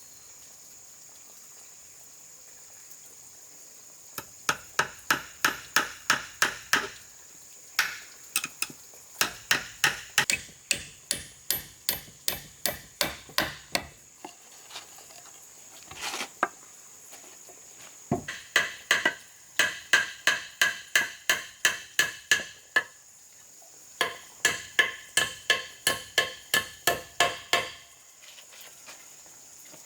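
Hammering: fast runs of sharp blows, about four a second, each one ringing briefly, in several bursts with short pauses between.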